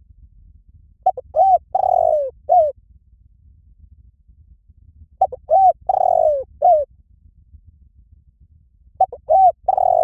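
Spotted dove cooing: a phrase of several coos repeats about every four seconds, three times, each made of a short lead-in note, a rising-and-falling coo, a longer coo and a falling final note.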